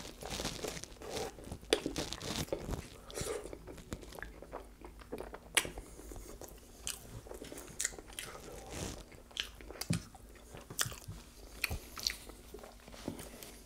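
Close-miked chewing of rotisserie chicken: many small, irregular mouth clicks and crunches.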